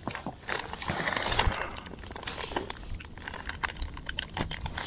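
Irregular light clicks and knocks from fishing tackle being handled in an inflatable boat, thickest about halfway through.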